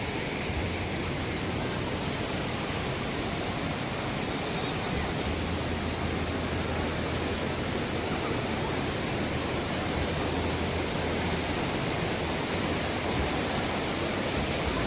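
Steady rush of falling water from a waterfall, an even hiss with no change in level.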